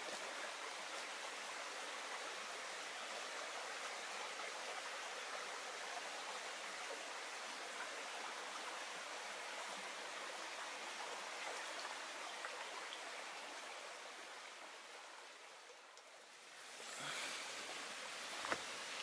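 A brook running: a steady rush of flowing water that fades briefly about sixteen seconds in and then swells again, with a single sharp click near the end.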